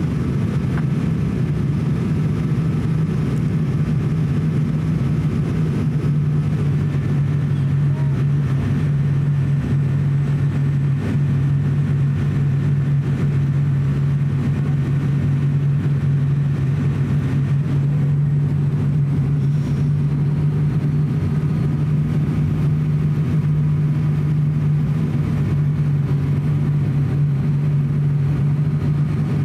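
Steady drone of an ATR42-600's turboprop engines and propellers heard inside the passenger cabin, a strong low hum holding an even pitch throughout.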